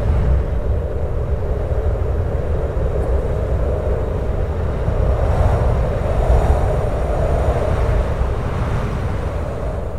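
Strong, hollow-sounding wind blowing steadily with a deep low rumble, swelling slightly about halfway through.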